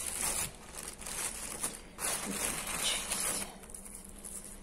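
Plastic bags and wrapped packets rustling and crinkling as a hand rummages through a cluttered drawer, in two spells, the second starting about two seconds in and lasting over a second.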